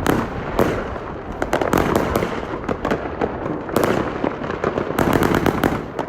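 Alpha Fireworks Venom 54-shot cake firing: a dense, continuous run of rapid bangs and crackling with no let-up.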